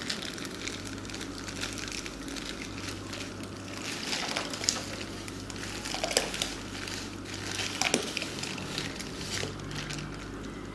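A plastic bag of salt crinkling as it is handled and tipped, and the salt pouring into a plastic basin of water, with scattered crackles and clicks.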